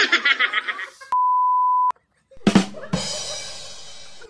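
Burst of group laughter, then a steady high censor-style bleep lasting just under a second. After a short silence comes a drum rimshot sting: two quick drum hits and a cymbal that rings on, fading.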